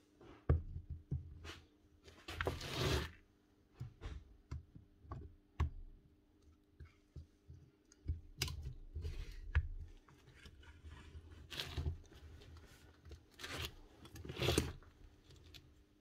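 Metal parts of a magnetic drill being handled during reassembly: irregular knocks, clicks and scrapes as the motor housing and armature are worked onto the drill's slide and base.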